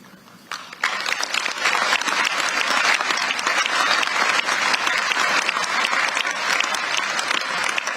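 Large audience applauding, many hands clapping together; the applause starts under a second in and holds steady.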